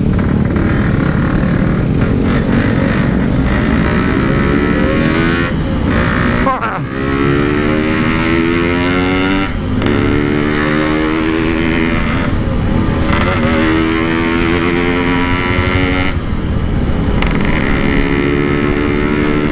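Yamaha RX-King's single-cylinder two-stroke engine pulling hard through the gears. Its pitch climbs in several pulls and drops back at each gear change, through an aftermarket 'standart belek' exhaust.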